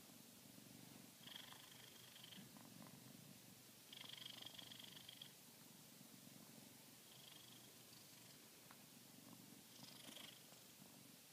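Domestic cat purring close up, a steady low rumble throughout, with brief higher-pitched sounds every few seconds over it.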